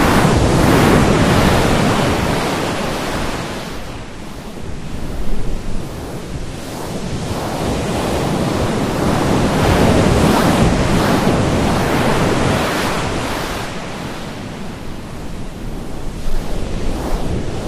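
Loud rushing noise that swells and eases over several seconds at a time, with a few brief jolts, like surf or wind.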